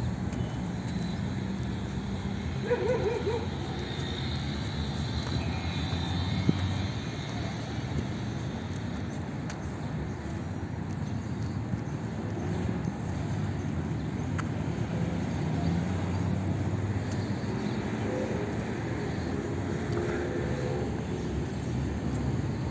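Outdoor city street ambience: a steady low hum of traffic, with a brief wavering sound about three seconds in.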